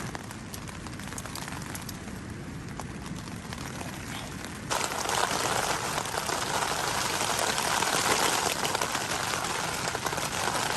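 Rain falling on a tent in a steady patter, which suddenly gets much louder a little under halfway through.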